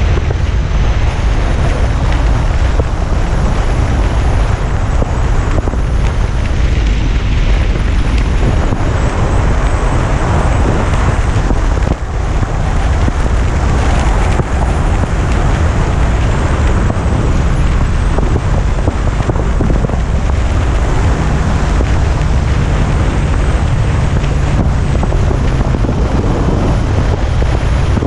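Yamaha FJR1300 sport-touring motorcycle riding at road speed: steady wind rush and road noise over the camera, with the engine droning underneath.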